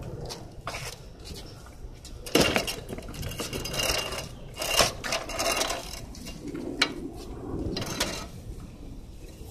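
Metallic clanks, rattles and knocks of a Motobécane pedal moped being shifted by hand, with the loudest knocks about two and a half and five seconds in.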